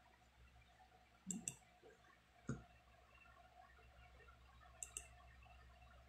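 Quiet computer mouse clicks: a pair just over a second in, one more about a second later, and another pair toward the end, over a faint steady hum.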